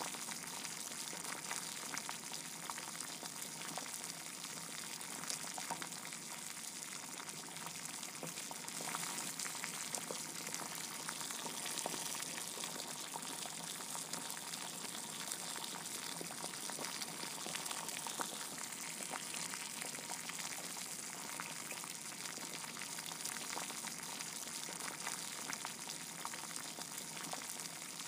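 A steady crackling hiss with many small crackles, at an even level throughout.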